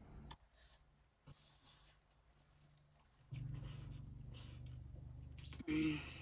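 A man slurping and chewing spicy instant noodles with pork: a string of short, airy slurps and sucks. A low hum comes in about three seconds in, and a short voiced 'mm' follows near the end.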